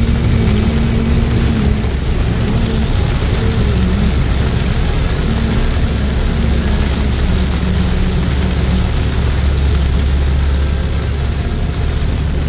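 Inside a car driving on a wet road in heavy rain: a steady low engine and road rumble under a hiss of rain and tyre spray. The hiss grows brighter from about two and a half seconds in until near the end.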